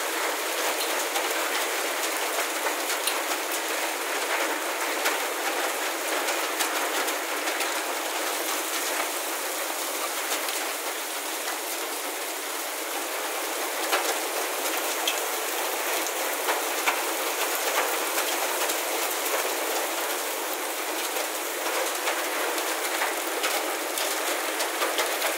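Heavy storm rain pouring down in a steady hiss, mixed with hail that shows as scattered sharp ticks.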